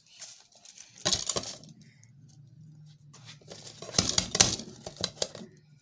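Square metal baking tin knocking and clinking against a ceramic plate as it is turned upside down onto it to demould the set sweet: a short clatter about a second in, then a louder cluster of knocks and clinks around four seconds in.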